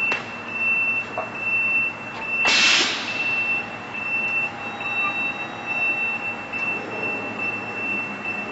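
Pallet conveyor assembly line running, with a steady high-pitched whine and a steady rattling hum. About two and a half seconds in comes one short, loud hiss of air.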